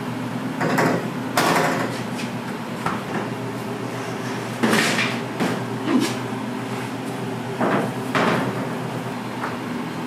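Several short knocks and scrapes of kitchen work, about five in all, over a steady machine hum.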